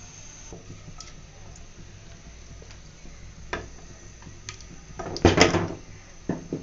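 Light ticks and knocks of a plastic spatula against a nonstick frying pan. A loud clatter comes about five seconds in, and one more knock near the end.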